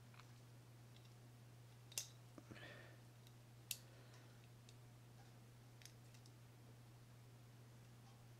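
Faint clicks of small metal reel parts being handled and fitted into a baitcasting reel's frame: two sharp clicks about two and nearly four seconds in, a few lighter ticks between, over a low steady hum.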